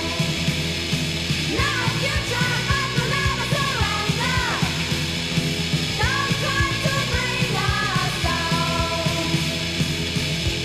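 Late-1980s noise-pop rock song: electric guitar and drums on a steady beat, with sung vocal lines coming in about a second and a half in and again about six seconds in.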